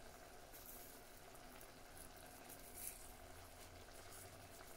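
Faint bubbling of a tomato-based seafood sauce simmering in a clay pot, with a few soft pops.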